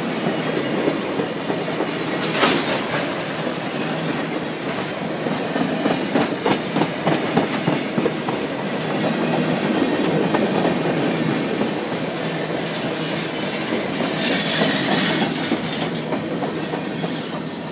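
Freight train of tank cars rolling past close by: a steady rumble of wheels on rail, with clacks as the wheels cross rail joints. Past the middle, the wheels give a high-pitched squeal for a few seconds.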